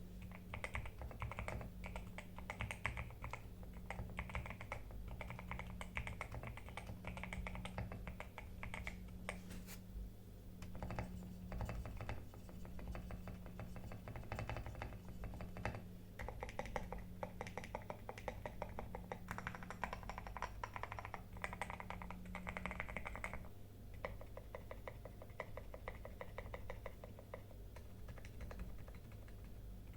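Continuous typing on a GMK67 mechanical keyboard with lubed Outemu Red linear switches, foam-dampened and tape-modded: a dense run of rapid keystrokes with a brief pause about ten seconds in.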